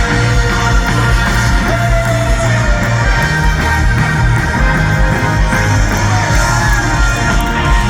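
Loud rock music with a steady, heavy bass line.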